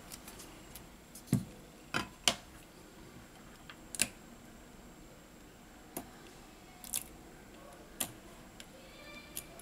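Separate sharp clicks and light taps, about one a second, of metal tweezers and fingers against the phone's glass back cover.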